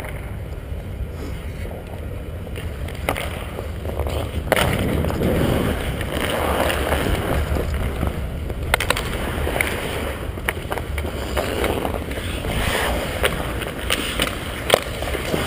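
Ice hockey skate blades gliding and scraping on rink ice under a steady low rumble, with several sharp clicks scattered through.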